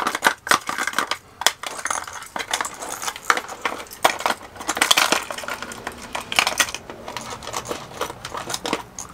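Hard plastic fishing lures and their metal hooks clattering and clinking against each other and a plastic tackle box as a hand rummages through it: an irregular run of light clicks that thins out near the end.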